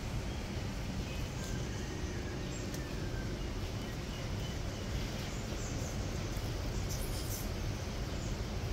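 Aldabra giant tortoise eating a mini cucumber: a few faint crunching bites, the clearest near the end, over a steady low rumble of outdoor background noise. A faint bird chirps a couple of times between one and three seconds in.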